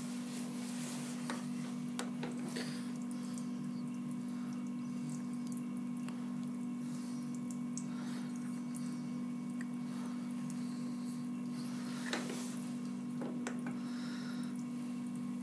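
Coolant running in a steady trickle and splash on a lathe set up with a tool post grinder, over a steady motor hum, with a few faint clicks.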